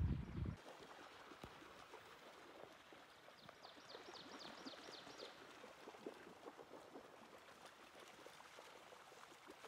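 Faint lapping of lake water with scattered small clicks. A louder low rumble cuts off about half a second in. A little past three seconds in, a bird gives a quick run of about eight short, high chirps lasting under two seconds.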